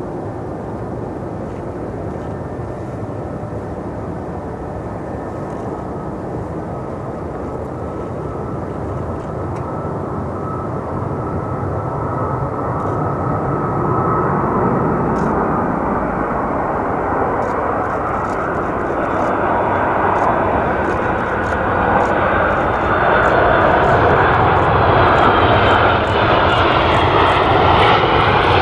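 Boeing 757-200's two Rolls-Royce RB211-535E4B turbofans on approach and landing: a steady jet rumble with a high whine, growing louder as the aircraft comes closer and rolls out on the runway.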